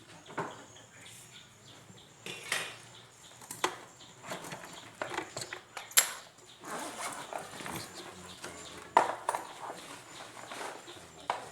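Scattered clicks, clinks and knocks of small metal objects being handled, with sharper knocks about six seconds in and again about nine seconds in.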